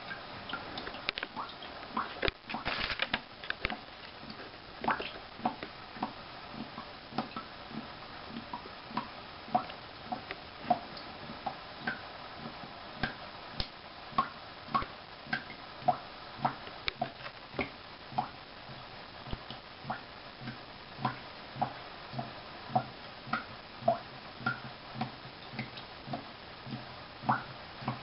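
Water dripping into a toilet tank in short plinks, roughly one to two a second, over a faint steady hiss, as the tank refills through a newly fitted fill valve.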